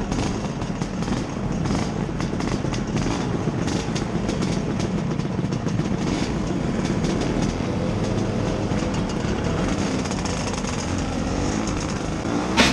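Classic scooter's small engine running steadily while under way, mixed with wind rush over the camera microphone.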